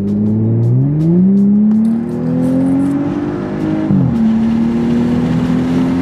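2018 Audi S4's turbocharged 3.0-litre V6 under hard acceleration, heard from inside the cabin with its valved exhaust open in dynamic mode. The engine note climbs steadily, drops sharply with an upshift about four seconds in, then climbs again more gently.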